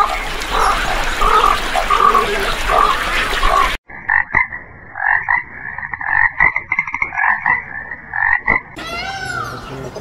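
Water splashing for the first few seconds, then a water frog croaking in a rapid run of rattling calls for about five seconds. Near the end a peacock begins calling, in repeated arching wails.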